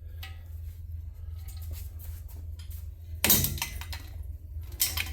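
Two knocks about a second and a half apart, the first loud and ringing briefly, over a steady low hum.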